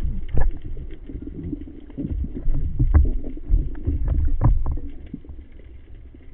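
Underwater sound picked up by a diver's camera: low, swelling water rumble with a few scattered clicks and knocks.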